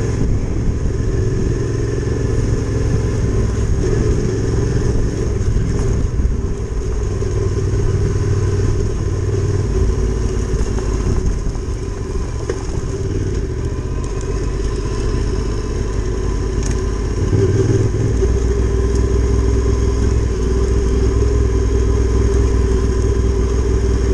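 Adventure motorcycle engine running while the bike rides down a gravel lane. The engine note shifts about ten seconds in and again near eighteen seconds.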